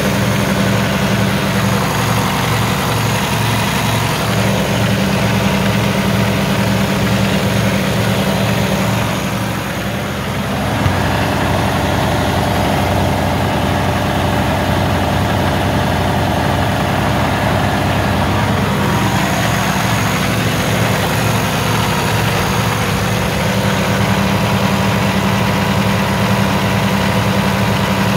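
Cummins X15 inline-six diesel engine idling steadily. About ten seconds in, a higher steady hum joins it for some eight seconds, with a single click near its start.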